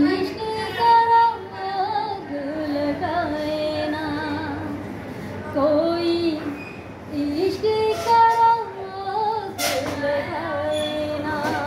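A young woman singing solo and unaccompanied, a slow melody of long held notes with vibrato.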